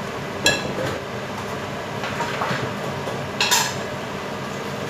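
Fried tofu cubes tipped from a plate into a stainless steel pot, with two ringing clinks against the pot, about half a second in and again about three and a half seconds in.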